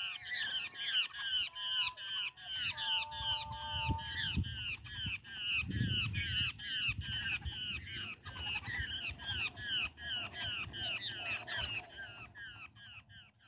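Babblers calling in a fast, even series of harsh chattering notes, about three a second, going on without a break and fading near the end.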